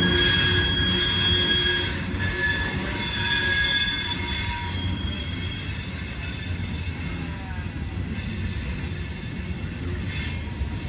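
A passing train's wheels squealing, high thin steady tones over the rumble of rolling railcars. The squeal fades out about halfway through, leaving the quieter rumble.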